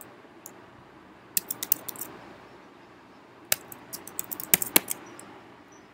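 Typing on a computer keyboard: keys clicking in two short quick runs, one about a second and a half in and a longer one from about three and a half seconds in, with pauses between.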